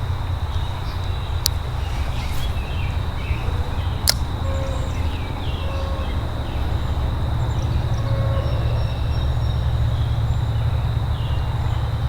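Steady low outdoor rumble with faint short high chirps and two sharp clicks, at about one and a half and four seconds in.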